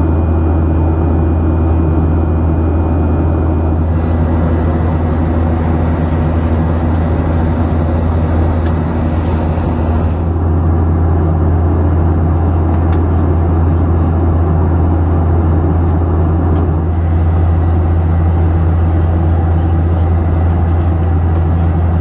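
Boeing 737 jet engines and airflow heard inside the passenger cabin in flight: a loud, steady, low drone.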